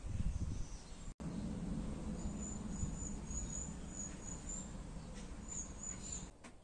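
Birds chirping in short high-pitched runs over a steady low rumble, the sound dropping out for an instant about a second in.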